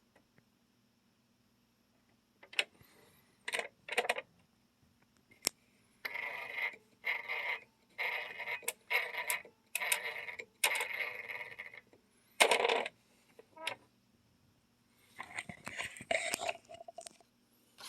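Brother ML100 electric typewriter typing: a few single keystrikes, then quick runs of strikes in bursts of about half a second, with one loud stroke past the middle. A faint steady hum lies underneath.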